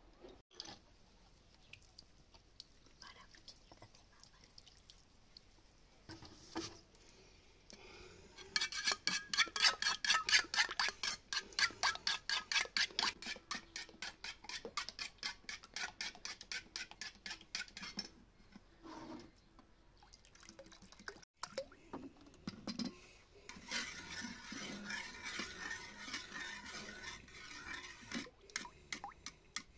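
A kitchen utensil stirring fast in a bowl or pot: a quick, even run of scraping strokes, about five a second, goes on for roughly ten seconds, loudest at first. Scattered clinks follow, then more stirring and scraping with clinks near the end.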